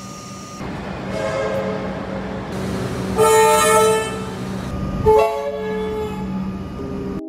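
Comeng train's three-chime horn sounding a chord, faintly about a second in, then in two loud short blasts about three and five seconds in, over the steady hum and running noise of the train.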